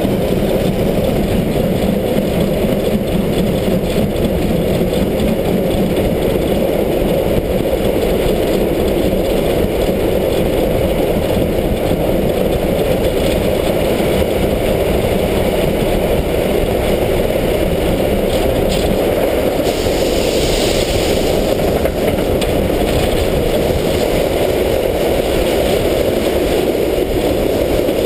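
Steam locomotive 33-037, a class 52-type 2-10-0, running through a long tunnel as heard from the footplate: a loud, steady roar of the locomotive and its wheels. A brief higher hiss comes in about twenty seconds in.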